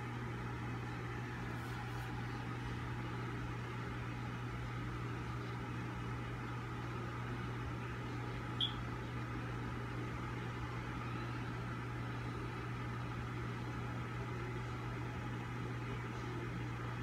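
Steady low machine hum with a faint even hiss, and one short high chirp about halfway through.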